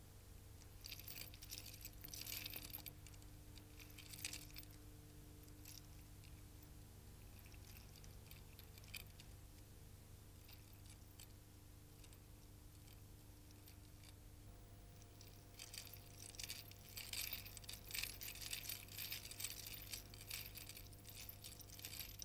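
Faint metallic jingling and clinking, in short spells near the start and more continuously from about two-thirds of the way through, over a low steady hum.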